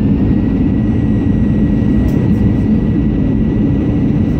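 Steady cabin noise of an Airbus A320-211 airliner on approach: its CFM56 jet engines and the airflow, heard from inside the cabin as a low, even rumble with a faint thin steady whine above it.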